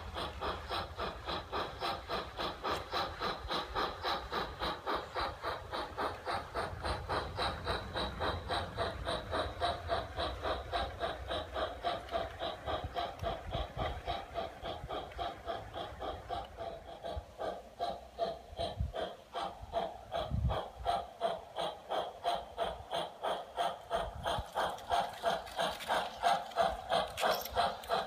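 Garden-scale model steam locomotive's electronic sound module chuffing in an even rhythm of about two to three beats a second as the train runs, with a light rolling rumble from the wheels.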